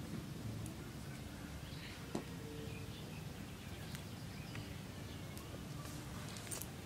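Quiet countryside ambience: a steady low background rumble with faint bird chirps now and then and a few sharp clicks, the loudest about two seconds in.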